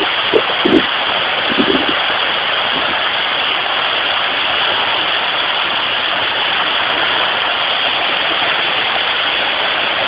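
Waterfall pouring: a loud, steady, even rush of falling water.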